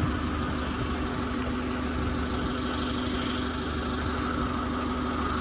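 Forklift engine idling steadily with an even, unchanging hum.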